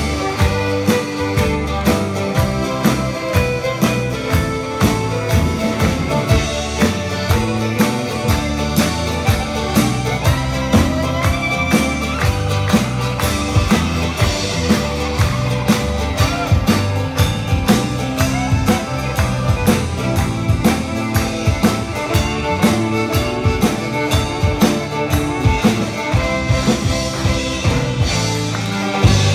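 A live folk-rock band plays an instrumental passage with fiddle, acoustic guitars, banjo, accordion and drum kit over a steady beat.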